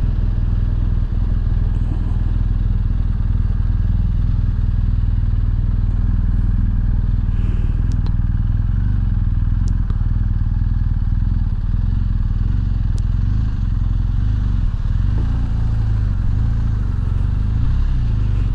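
BMW R1250 GS Adventure's boxer-twin engine running steadily at low revs as the motorcycle rolls slowly, with a few faint clicks.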